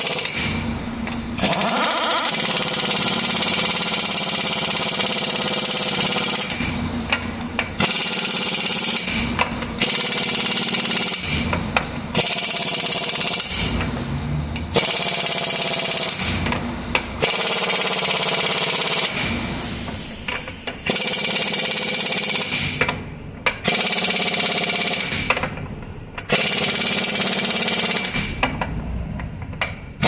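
Pneumatic impact wrench running on a bus's rear wheel nuts, in repeated bursts of about a second to several seconds with short pauses between them.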